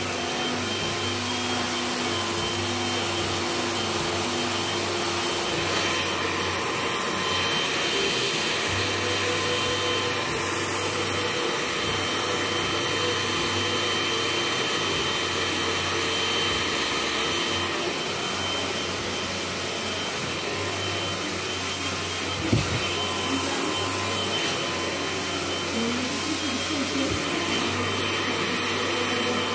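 Hand-held hair dryer running steadily while blow-drying hair straight, with one brief knock about two-thirds of the way through.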